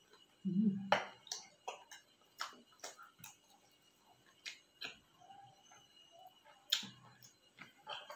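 Close-up chewing of crunchy deep-fried shrimp, shell and head: crisp crackles at irregular intervals, with a short low hum about half a second in.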